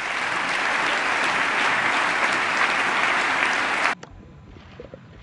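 Audience applauding: a steady, dense clapping that cuts off abruptly about four seconds in, followed by faint room noise.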